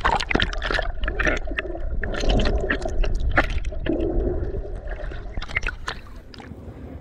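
Sea water splashing and gurgling right against the camera as it bobs at the surface and dips briefly under the water, with many crackling splashes.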